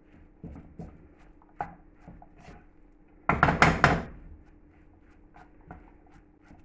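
Kitchen utensils knocking on a bowl or board: a few light knocks, then a quick run of loud clattering knocks about three seconds in, lasting under a second. A faint steady hum runs underneath.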